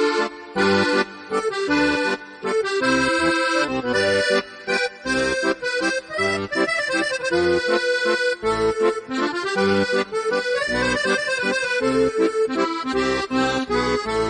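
Instrumental background music: a melody over regularly pulsing bass notes.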